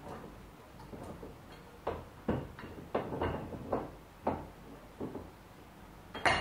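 Metal clunks and knocks as a heavy metal universal bender is set into a bench vise's jaws and shifted about: irregular knocks, several a second apart, then a louder, sharper clank just before the end.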